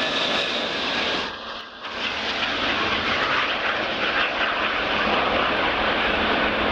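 Antonov An-225 Mriya's six D-18T turbofan engines at takeoff power as the aircraft climbs out: a loud, steady jet rush. The sound drops away briefly about a second and a half in, then returns.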